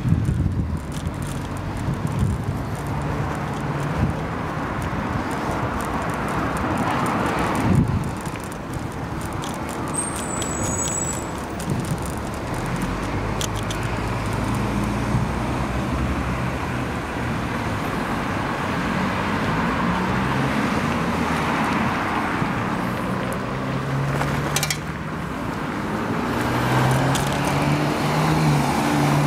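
Street traffic with car engines running, heard over a steady rushing noise from riding a bicycle.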